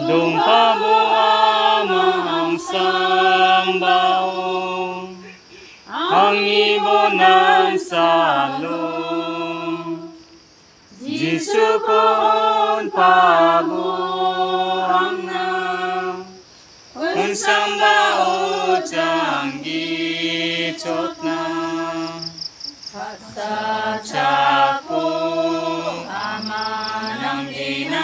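A group of women singing a hymn together without accompaniment, in sung phrases of about five seconds with short pauses between them.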